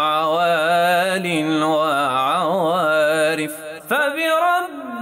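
A solo voice singing an Arabic song in long, drawn-out, wavering notes. A brief break comes near the end, followed by a quick upward swoop into the next phrase.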